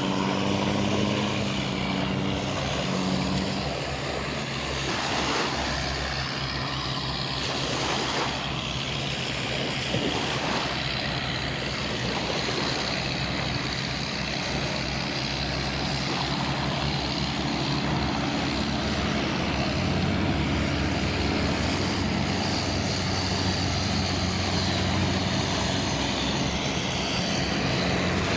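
An engine drone with a steady pitch that fades out within the first few seconds, then a continuous rushing noise with a low hum.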